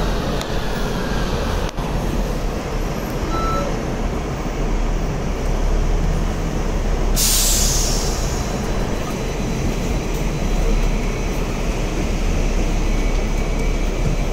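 Hong Kong double-decker tram heard from its upper deck: a steady low rumble, with a sudden hiss of compressed air about seven seconds in that fades over a second. Near the end the tram moves off along its tracks.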